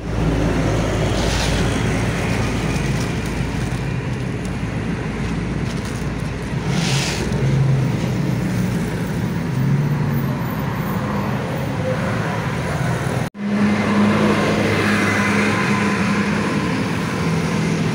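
Steady road traffic noise of cars and motorbikes passing on a busy road, with a continuous engine rumble; the sound cuts out for an instant about two-thirds of the way through.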